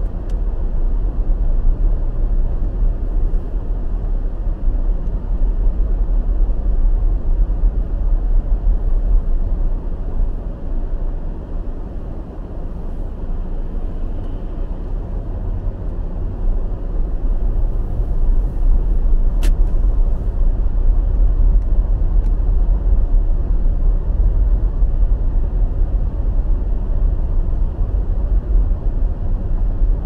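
Steady low rumble of a car's engine and tyres heard from inside the cabin while driving over snow-covered pavement, easing briefly about a third of the way in. One sharp click about two-thirds through.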